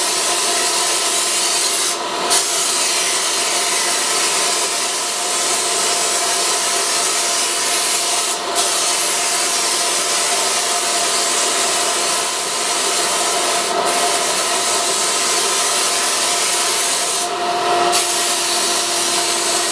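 Spray gun on an air hose hissing steadily as it sprays water-based white-tinted sealer onto maple cabinet panels, with the steady whine of the air supply underneath. The hiss breaks off briefly a few times as the trigger is released between passes.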